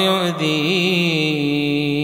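A man's voice chanting an Arabic supplication in a melodic recitation style, drawing out one long held note that wavers briefly about half a second in, then holds steady.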